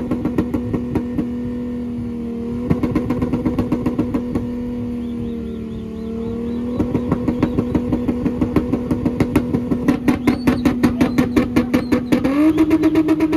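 Volkswagen Golf VR6's narrow-angle V6 running through its twin-tip exhaust, held at steady high revs with a rapid, regular pulsing; the revs rise briefly near the end.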